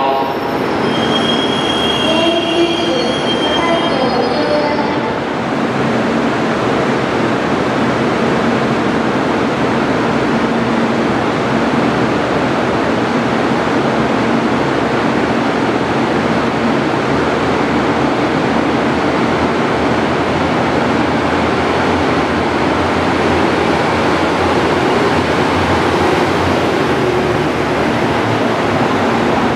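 Yufuin no Mori diesel railcar express pulling into a covered station platform: a steady, loud rumble of its engines and wheels on the rails as it passes close by.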